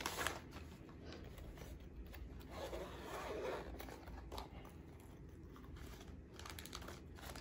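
Faint rustling and small clicks of plastic packaging being handled: a frosted zip-lock pouch is opened and a zippered hard glasses case is taken out and opened.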